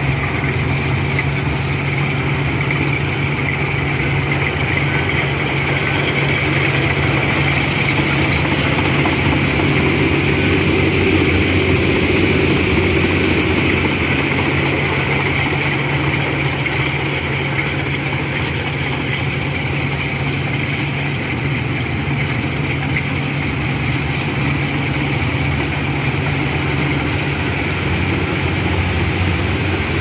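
Javatech rice combine harvester running steadily while it cuts and takes in standing rice: a constant engine drone with a steady mechanical hiss over it.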